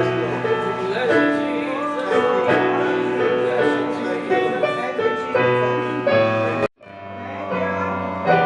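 Gospel keyboard music playing sustained chords that change every second or so. The sound cuts out abruptly for a moment about two-thirds of the way through, then comes back.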